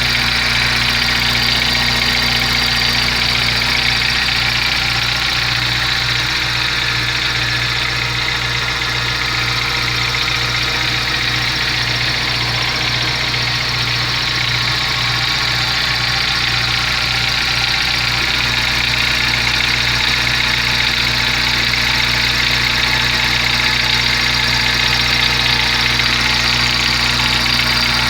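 Volkswagen Gol G4 engine idling steadily, carrying an abnormal noise of unknown cause.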